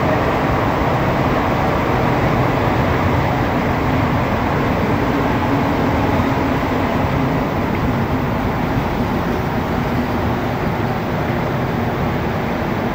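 Montréal Metro Azur (MPM-10) rubber-tyred train running steadily at speed, heard from inside the passenger car: a continuous rumble of the tyres and running gear with a low motor hum that rises slightly about midway.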